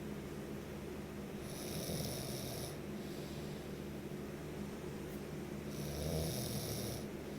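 Someone snoring in sleep, two snoring breaths about four seconds apart.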